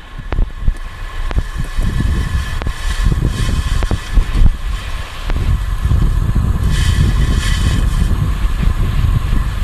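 Falcon 9 first stage's Merlin 1D engines firing during ascent: a loud, crackling low rumble that builds about a second and a half in.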